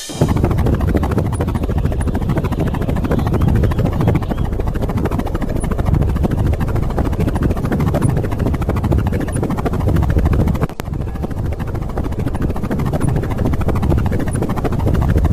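A helicopter's rotor and engine running steadily as a dense, rapidly pulsing noise, dipping briefly about eleven seconds in.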